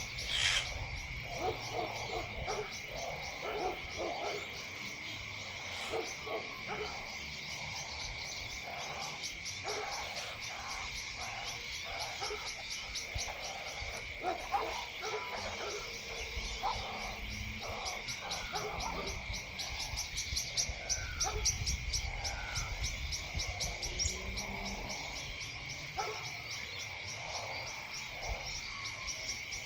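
Many short animal calls scattered throughout, over a steady high-pitched drone and fast, even ticking.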